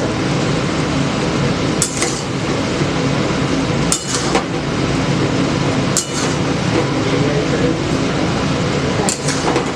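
Metal utensils clinking against cookware a few times, roughly every two seconds with a quick cluster near the end, over a steady loud rushing noise.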